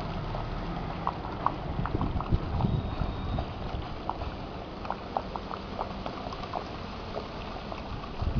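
Water pouring from a PVC pipe outlet into an aquaponics fish tank, trickling and bubbling with many small irregular drips and splashes, over some low wind rumble on the microphone.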